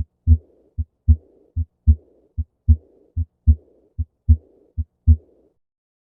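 Recorded heart sounds of aortic regurgitation: seven lub-dub beats at about 75 a minute, each second heart sound trailed by a faint high-pitched murmur in early diastole. The beating stops about five and a half seconds in.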